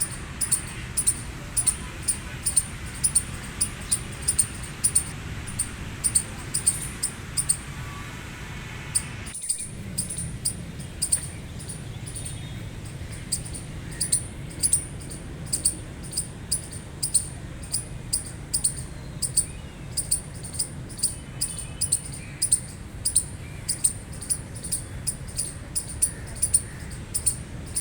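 Gray squirrel giving a long series of short, high-pitched chirps, about two a second, with a brief break about nine seconds in.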